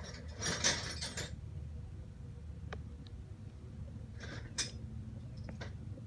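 Metal hand tools clinking and rattling as they are handled: a burst of clatter near the start, then a few separate light clicks and short rattles, over a steady low hum.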